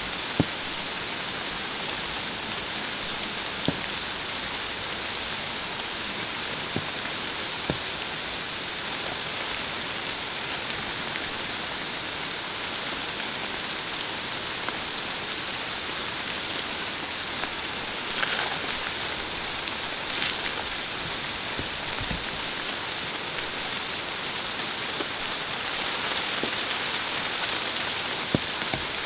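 Steady rain, an even hiss with scattered drop-like ticks throughout.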